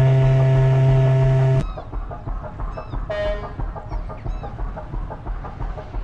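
A deep, steady boat horn blast that cuts off sharply about a second and a half in. Under it runs a low rhythmic throb of about four beats a second, and after the horn stops there are a few faint, short, high chirps.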